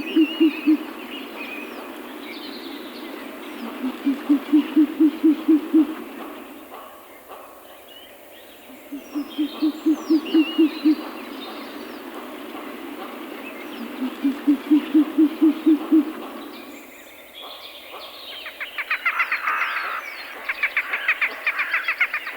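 Owl hooting in four runs of quick, low notes, each run about two seconds long with pauses between, while small birds chirp faintly in the background. Near the end a higher, rapid chattering call from another bird takes over.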